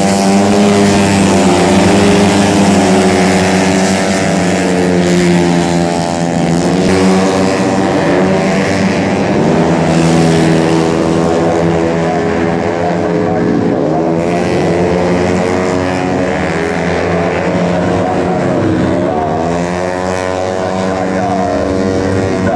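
Tuned 130 cc automatic scooter racing engines running at high revs as a pack passes, their pitch sweeping up and down again and again, several engines at once.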